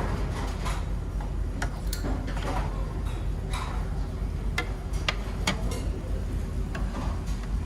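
Steady low hum of the ferry's engines and ventilation, with scattered light clicks and clinks at irregular intervals.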